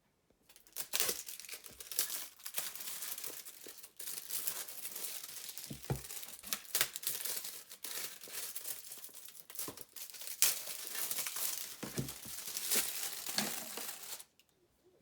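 Close crinkling and rustling of something crinkly being handled, full of tiny crackles. It starts about a second in, pauses briefly twice, and stops just before the end.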